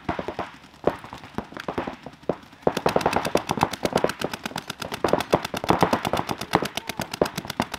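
Paintball markers firing: scattered single shots at first, then from about two and a half seconds in a fast, continuous string of about ten shots a second.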